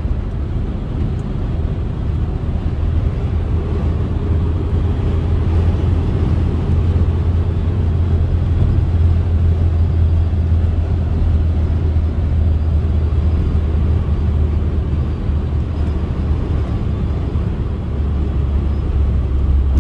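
Saab 9-3 driving at highway speed in sixth gear, heard inside the cabin: a steady low engine drone mixed with road and tyre noise, growing slightly louder over the first several seconds.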